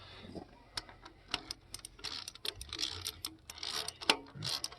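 Socket ratchet clicking in short, uneven runs as the rocker shaft bolts are run down a few turns at a time.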